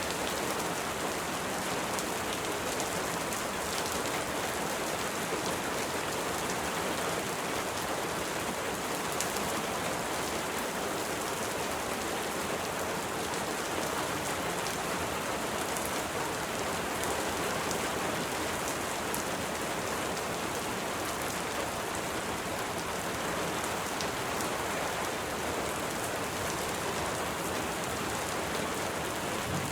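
Steady rain falling, an even hiss with faint individual drop ticks scattered through it.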